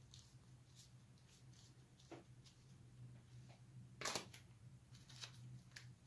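Faint rustles and light clicks of rolled-paper weaving tubes being bent and handled, with one brief louder rustle about four seconds in, over a steady low hum.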